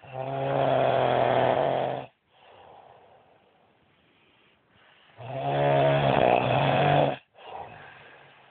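A man snoring loudly in his sleep: two long snores with a steady low pitch, each lasting about two seconds and starting about five seconds apart, with faint breaths between them.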